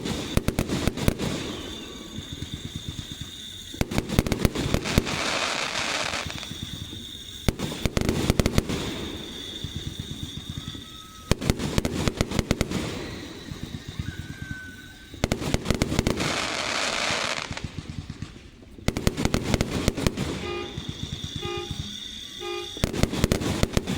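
Aerial fireworks bursting in rapid succession: sharp bangs and pops, with longer crackling, sizzling shells about five and sixteen seconds in. A few short horn toots sound near the end.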